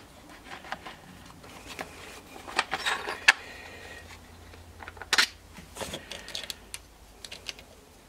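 Scattered clicks and light metallic clinks of tools and small parts being handled during a chainsaw teardown, with a small cluster a few seconds in and a sharp click near the middle.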